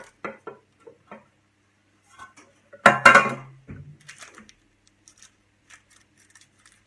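Kitchenware being handled on a granite worktop: a run of light clinks and knocks, then one loud clatter about three seconds in, then a few faint taps.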